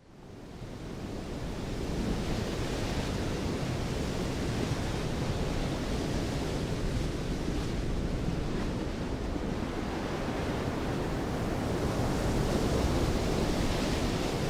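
A steady rushing noise that fades in over the first couple of seconds and then holds even, without tone or beat.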